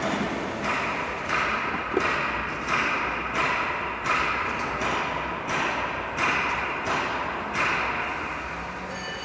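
Rhythmic factory machine noise: a hissing stroke that repeats about every 0.7 seconds, each starting sharply and then fading.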